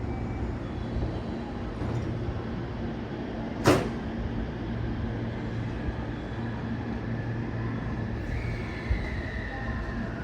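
Train and platform noise at a busy station: a steady low rumble, one sharp clack about a third of the way in, and near the end a high whine that slowly falls in pitch, as an electric train's motors wind down.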